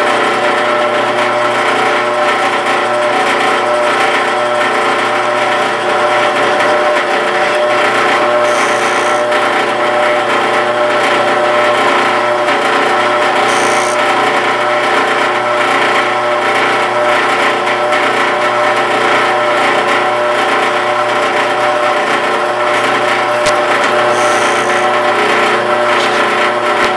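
Benchtop drill press running steadily, its motor giving a constant hum, while two small holes are drilled into a level gauge (inclinometer) set on wood blocks. A few brief high hisses come and go, about 9, 14 and 24 seconds in.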